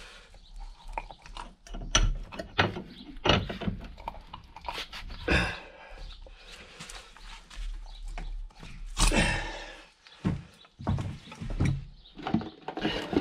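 Irregular knocks and clunks of a car driveshaft and its inner CV joint being pushed together and handled on a wooden workbench, with a couple of longer scraping sounds about five and nine seconds in.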